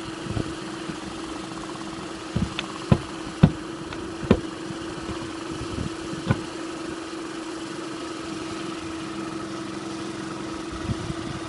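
A motor runs steadily with a constant hum. A few sharp knocks come between about two and six seconds in.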